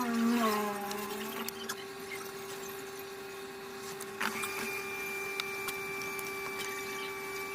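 A steady electrical hum, joined about four seconds in by a second, higher steady tone, with scattered small clicks.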